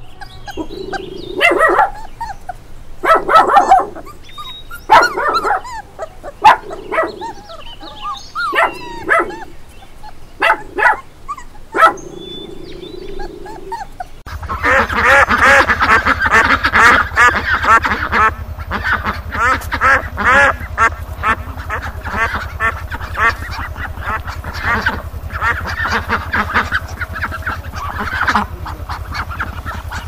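Puppies giving short cries, one every second or two; about halfway through, a flock of white domestic ducks takes over, quacking continuously.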